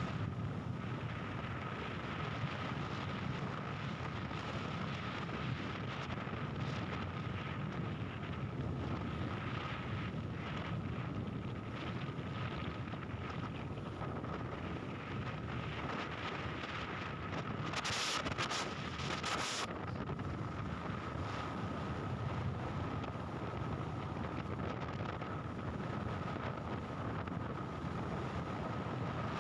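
Steady rumble of a moving vehicle with wind buffeting the microphone, over a thin, even high tone. A few short hissing bursts come about two-thirds of the way through.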